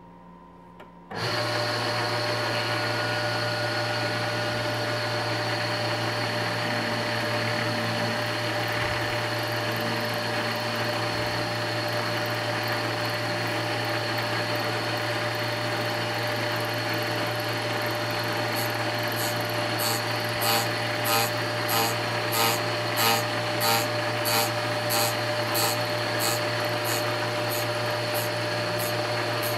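Rose engine lathe's overhead-drive cutting frame and motors start about a second in and run steadily with a hum and a few held tones. From about two-thirds of the way through, the cutter begins biting into the turning ash workpiece in a regular series of short scraping pulses, about one and a half a second.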